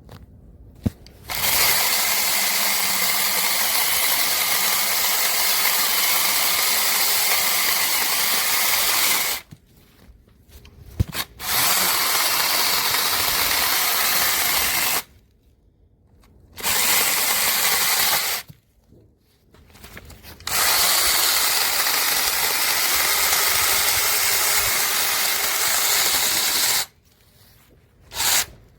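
Bosch EasyChain 18V-15-7 battery mini chainsaw with a brushless motor, running in five separate bursts with short pauses between. The longest burst lasts about eight seconds and the last is brief.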